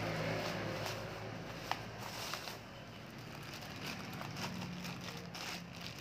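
Plastic packaging rustling and crackling with scattered sharp clicks as a water heater element is unwrapped from black bubble wrap and a clear plastic bag, over a low steady hum.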